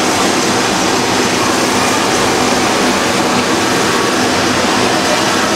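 Steady rushing of a Walt Disney World Railroad narrow-gauge steam locomotive standing at the station water tower while its tender is filled through the tower's spout.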